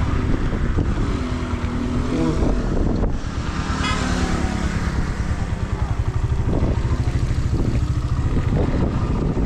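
Suzuki GS 150 SE motorcycle's single-cylinder engine running steadily at low speed.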